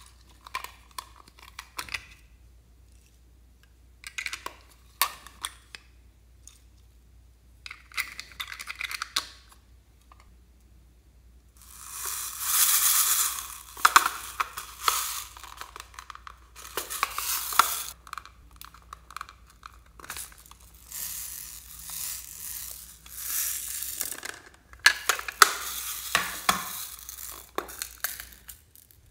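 Hard plastic toys and cases being handled: scattered clicks and taps for about the first ten seconds, then long stretches of scraping, crinkling noise broken by sharp clicks.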